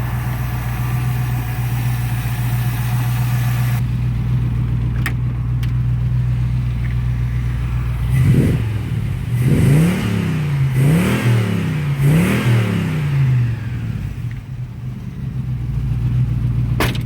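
Ford Capri's V8 engine idling steadily, then blipped four times in quick succession about eight seconds in and settling back to idle. It runs smoothly with no ticks or knocks. A sharp click comes near the end.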